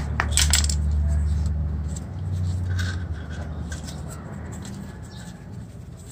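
An orange-handled screwdriver dropping onto concrete and clattering, several quick metallic strikes in the first half second. A low rumble underneath swells and fades over the first three seconds.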